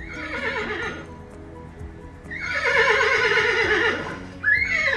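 Horse neighing: a short whinny that wavers and falls in pitch, then a longer, louder one about two seconds in, and a brief call near the end. Background music plays underneath.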